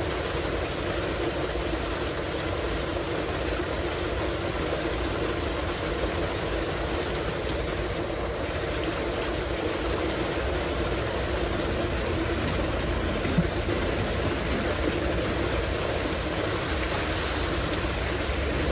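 Tubewell discharge: a thick jet of water gushing from the outlet pipe into a concrete tank, with the steady drone of the pump running underneath.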